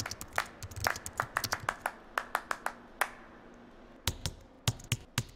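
Typing on a computer keyboard: a quick, uneven run of key clicks that stops about three seconds in, then a few louder, spaced-out keystrokes near the end.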